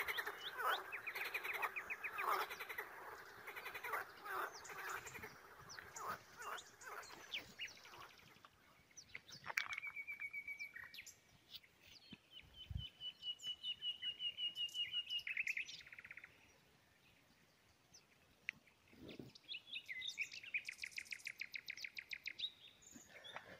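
Small birds calling and singing, faint: short high chirps and several fast trills of rapidly repeated high notes, coming and going with short quiet gaps.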